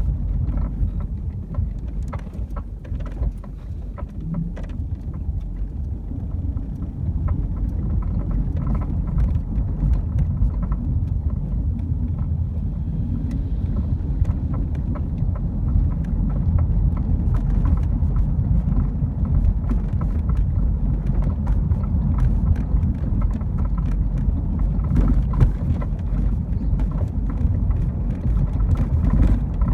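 BMW E36 driving over the road with a low steady rumble, overlaid by irregular sharp rattling knocks from the rear that sound like a loose wrench bouncing around: the sign of a worn-out rear shock mount.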